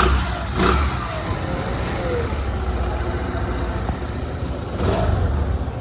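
Suzuki Access 125 scooter's single-cylinder four-stroke engine running after a rebuild with a new crankshaft, the old crank's noisy bearing replaced. It runs steadily and is revved briefly near the start and again near the end.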